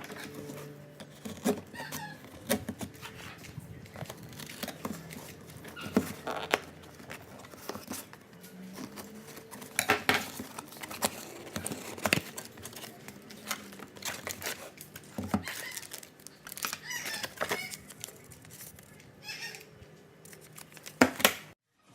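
Packaging being torn and crinkled open, with many sharp clicks and knocks of handling, and a few short bird calls in the background.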